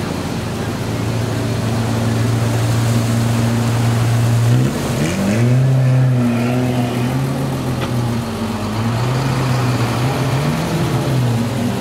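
A motor vehicle engine running steadily, then its pitch drops and climbs again several times from about halfway through as it is revved.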